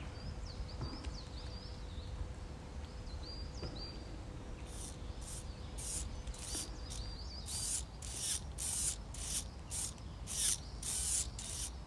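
Faint high bird chirps, then from about five seconds in a regular run of short, high, raspy pulses, about two a second, like an insect stridulating.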